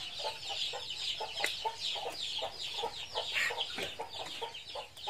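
Chickens clucking with chicks peeping: a steady stream of short low clucks, several a second, under many high, falling peeps.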